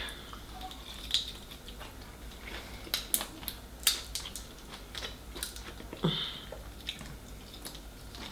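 Quiet eating sounds from a plate of seafood: chewing, with about half a dozen scattered sharp clicks and crunches of shells being cracked.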